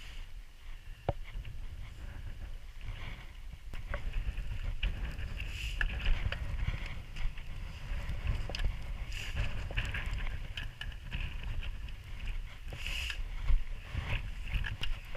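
Wind buffeting the microphone as a steady low rumble, with the scattered footsteps and small knocks of a hiker walking downhill.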